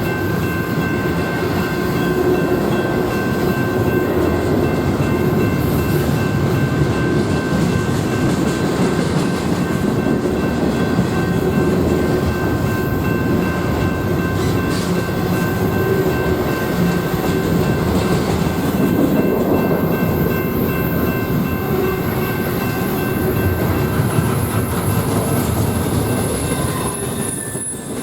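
Train rolling past: a steady rumble of wheels on the rails, with a thin steady whine above it.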